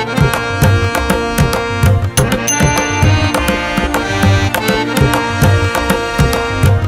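Background instrumental music with hand-drum percussion keeping a steady beat under sustained melodic tones.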